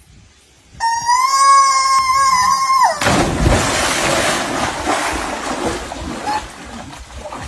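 A long, high-pitched scream, held steady for about two seconds and dropping at the end, then a person plunging into a swimming pool with a big splash and water churning as it fades.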